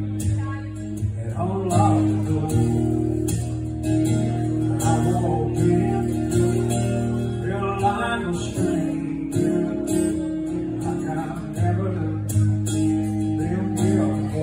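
Acoustic guitar strummed in steady, sustained chords, opening a song.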